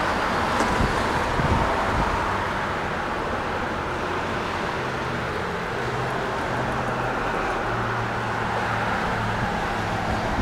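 Steady road traffic noise from cars on the road below, with a few low buffets of wind on the microphone in the first couple of seconds.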